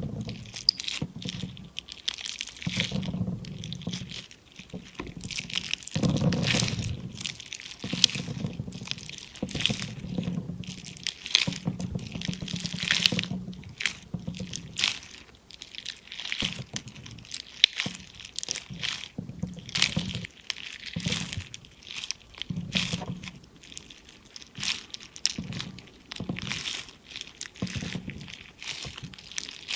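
Squishy stress-relief toy being squeezed and pressed over and over: a run of irregular crackles and small sharp pops.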